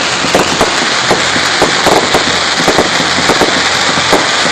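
Fireworks going off in rapid succession: many sharp pops and bangs over a steady crackling hiss.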